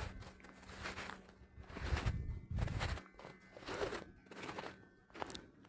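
Footsteps crunching in snow, about one step a second, with a low rumble near the middle.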